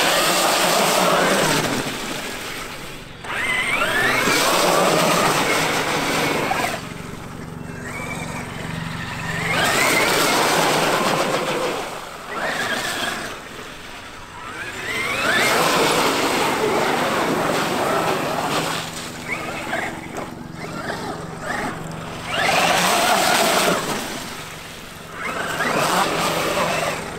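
Traxxas X-Maxx RC monster truck driven in repeated throttle bursts through muddy puddles, about six times, roughly every five or six seconds. Each burst has its electric motor whining up and down in pitch, along with the hiss of tyres and water spray.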